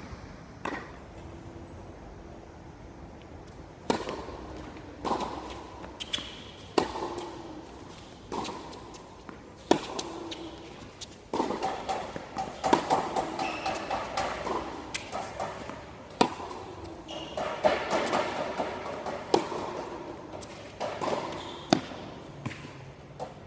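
Tennis ball being struck by rackets and bouncing on a hard court during a serve and baseline rally: sharp pops about every second or two.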